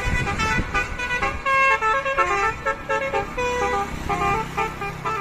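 Bus 'telolet' musical horn playing a quick melody of short notes that step up and down in pitch, with a vehicle engine running underneath.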